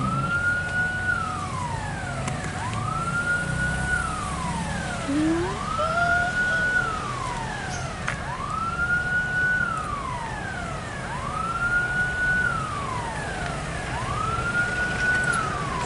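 A siren wailing steadily. Each cycle rises, holds a high note and then falls, repeating about every two seconds. Under it runs a low rumble of engines.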